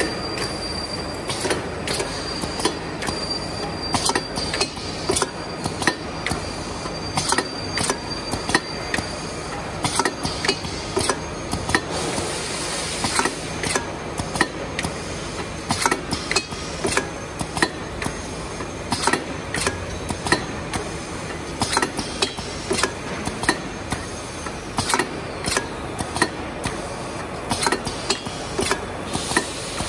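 Bouillon cube wrapping and box-packing machine running: a steady mechanical hum with a regular clatter of sharp clicks, about two a second, as it indexes the cubes along its conveyor. A faint high whine sounds over it for the first several seconds.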